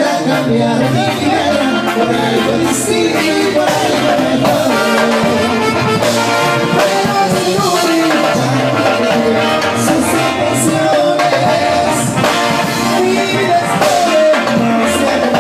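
Live Latin dance-band music played loud, with a synthesizer keyboard carrying brass-like lines.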